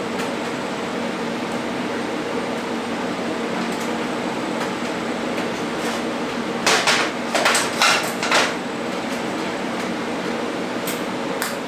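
TIG welding arc on stainless steel running with a steady hiss, with a cluster of sharp metallic knocks about seven to eight and a half seconds in and two more near the end.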